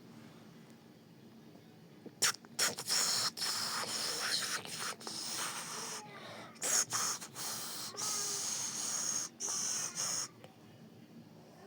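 Mouth-made hissing, spray-like sound effect in a run of bursts with short breaks, starting about two seconds in and stopping near the end.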